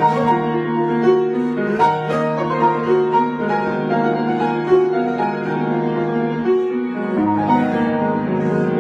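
Piano playing a melody over a held bass note, the bass stepping down to a lower note about seven seconds in.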